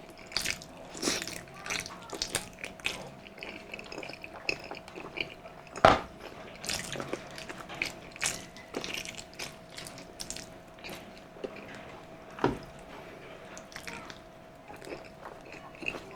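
Close-miked eating of balbacua stew: wet chewing and sucking with many small sharp clicks, and sharper knocks about six and twelve seconds in. A faint steady hum runs underneath.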